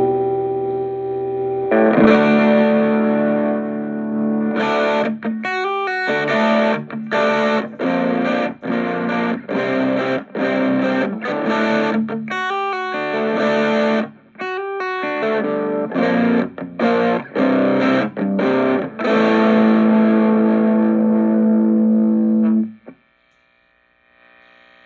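Electric guitar, a Les Paul with humbucker pickups through an Orange Micro Terror hybrid amp (valve preamp, solid-state power stage), playing distorted chords. Held chords give way to about fifteen seconds of short, choppy chord stabs, then a long held chord that is muted abruptly near the end.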